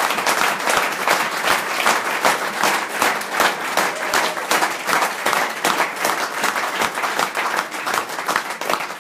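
Audience applause: many people clapping in a dense, steady patter that dies away at the very end.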